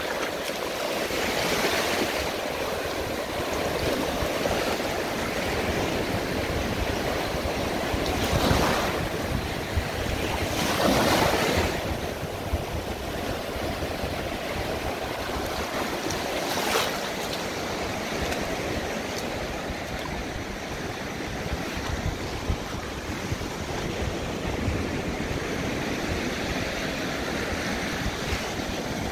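Gulf of Mexico surf washing onto the beach, with waves breaking several times (loudest about eight and eleven seconds in), and some wind buffeting the microphone.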